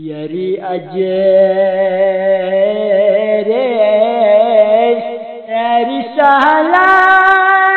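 A voice singing a Balti devotional qasida in long held notes that waver in pitch, breaking briefly about six seconds in and then sliding up into a steady held note.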